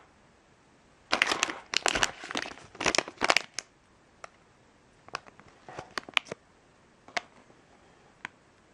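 A plastic LEGO Minifigures blind bag crinkling as it is picked up and handled for about two and a half seconds, then a few scattered crackles as fingers grip and shift it.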